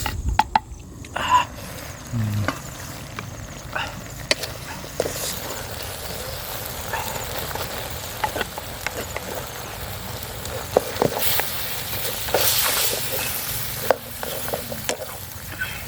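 Food frying with a steady sizzle in a pan, with scattered clicks and scrapes of a utensil stirring it; the sizzle swells louder about two-thirds of the way through.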